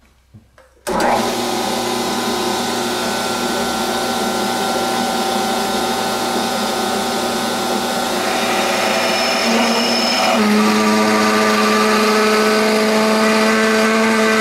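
Metal lathe switching on about a second in and running steadily with a geared motor whine while a 31/64 in twist drill in the tailstock is fed into the spinning workpiece. About ten seconds in the whine changes pitch and a deeper hum comes in.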